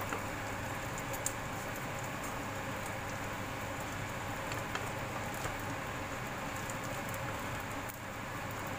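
Small dried anchovies frying in hot oil in a metal wok: a steady sizzle, with a few clicks of the wooden spatula against the pan as they are stirred.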